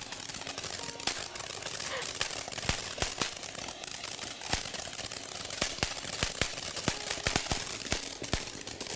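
Ground fountain firework spraying sparks: a steady hiss with many sharp, irregular crackles and pops.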